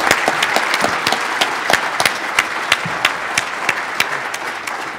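Audience applauding: many people clapping in a dense, even patter that thins slightly toward the end.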